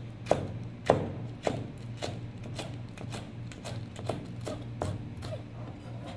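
Chef's knife slicing a vegetable stalk diagonally on a plastic cutting board: a sharp knock each time the blade meets the board, about two a second, with the first few strongest. A steady low hum runs underneath.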